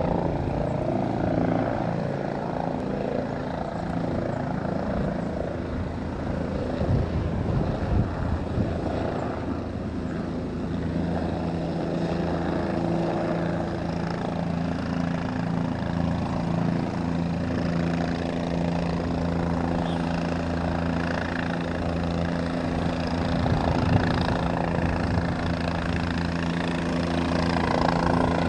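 Single-rotor turbine helicopter coming in to land: a steady rotor beat and engine hum, the tones growing stronger partway through and a little louder near the end as it descends and comes closer.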